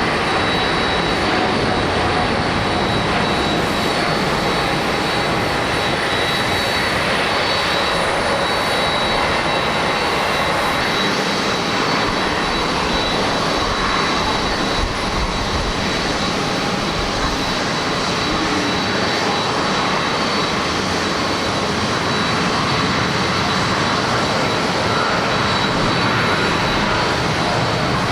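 Jet airliner's engines at takeoff power: a loud, steady roar with a thin, high, steady whine on top. An uneven low rumble of gusting wind on the microphone runs underneath.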